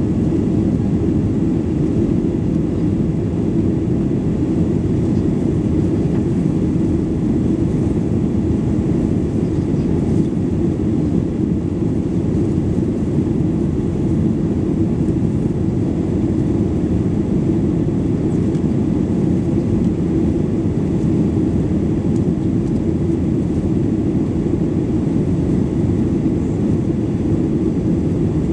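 Cabin noise of a Boeing 737-800 climbing after takeoff: its CFM56-7B turbofan engines and the airflow over the fuselage, heard from a window seat over the wing as a steady, dense low rumble.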